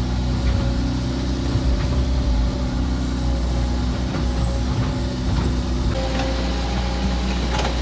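Excavator's diesel engine running steadily, its note shifting slightly about six seconds in, with a few light clicks.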